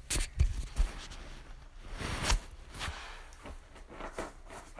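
Handling noise from the recording phone being picked up and set back in place: several sharp knocks in the first second and another about two seconds in, with rustling and scraping between.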